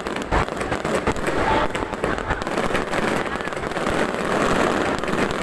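Fireworks display: shells bursting with many quick sharp cracks and pops over a continuous din.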